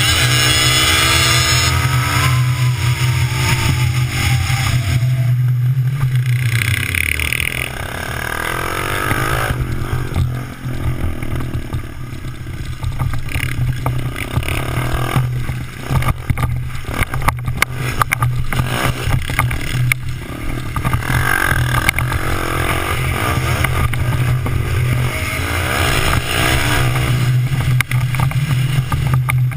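Small dirt bike's engine running and revving while being ridden, its pitch falling off in the first couple of seconds, with wind rushing and buffeting over the bike-mounted camera's microphone.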